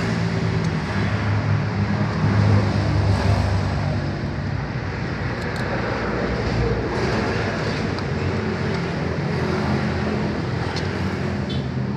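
Steady road traffic noise from passing vehicles, a low engine hum under a broad rush, with a few faint clicks.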